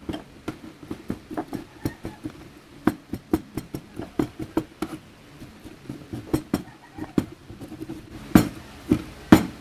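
Kitchen knife chopping boiled banana heart on a cutting board: a quick, uneven run of light chopping knocks, several a second, with three louder strikes near the end.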